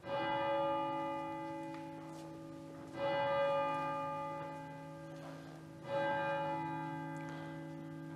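A bell struck three times, about three seconds apart, each stroke ringing on and slowly fading.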